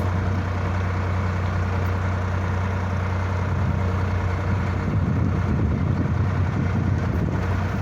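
Sonalika tractor's diesel engine running steadily, with a little unevenness in its pitch about five seconds in.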